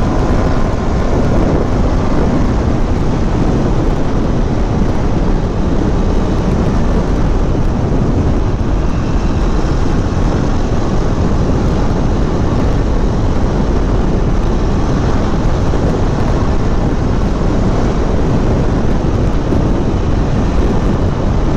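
KTM Duke 390's single-cylinder engine running while riding at speed, mixed with a steady rush of wind over the microphone.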